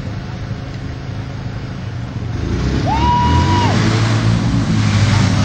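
ATV engines running, getting louder about two seconds in as one revs up. Just after three seconds a single short whistle swoops up, holds and falls away.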